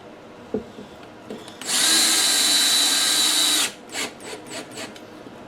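Power drill-driver driving a 1-inch flathead wood screw into a wooden drawer front, run at one steady speed for about two seconds and then stopped; a few light clicks and taps come before and after.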